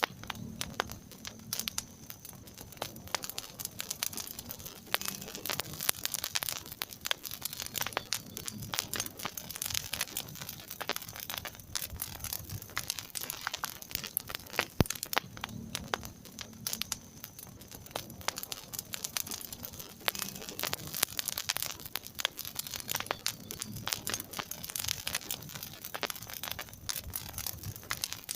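Wood fire crackling in a fireplace: many irregular sharp snaps and pops over a soft steady hiss.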